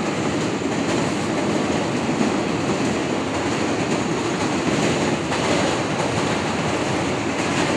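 Steady running noise of an R188 subway car in motion on an elevated line, heard from inside the car.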